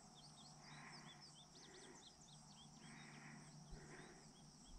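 Faint hayfield ambience: a bird's quick high chirps over the first two seconds, over steady high insect calls and a soft rasp that repeats about once a second.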